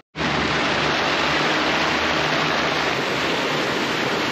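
Steady, loud rushing hiss of heavy rain and wind in a squall on a sailboat deck. It begins abruptly just after a brief silence.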